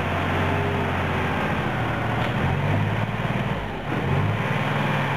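Compact wheel loader's diesel engine working under load as its bucket pushes against a tree stump to tear it out; the engine note strengthens about halfway through, dips briefly, then picks up again.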